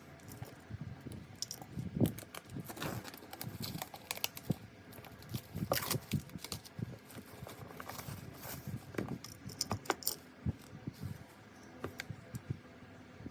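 Handling noise from unpacking a parcel: irregular crinkling and rustling of packaging with many small clicks and taps.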